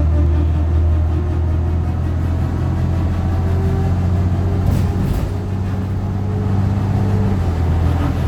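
A 2006 Nova Bus diesel bus running with a loud, steady low drone, its pitch shifting slightly a few times.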